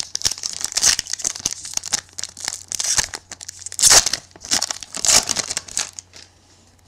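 A foil trading-card pack wrapper crinkling and tearing, with cards rustling against each other as they are handled. The rustles come thick and fast and stop about six seconds in.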